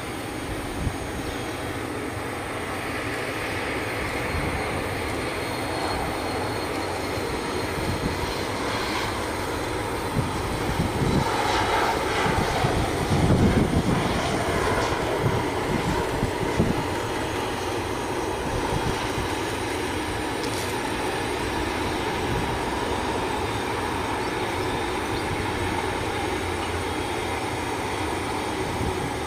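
Avro RJ85 (BAe 146) four-engine turbofan airliner landing: a continuous jet engine noise that swells to its loudest about halfway through, around touchdown, then settles into a steady rumble.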